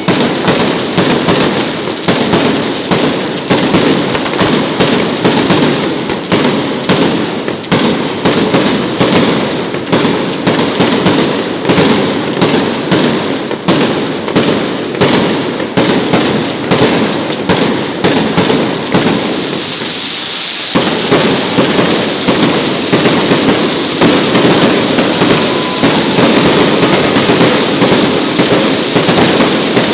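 Fireworks going off in a rapid, unbroken run of sharp cracks, many a second. About two-thirds of the way through, the cracks merge into a denser, more continuous, hissier crackle.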